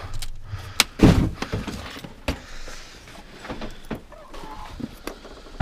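Tools and hardware being handled and set down: a few sharp knocks and clatters, the loudest about a second in and another a little after two seconds.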